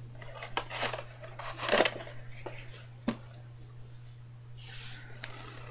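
Cardboard trading-card box and foil packs being handled: a few light knocks and taps with a stretch of rustling near the end, over a steady low hum.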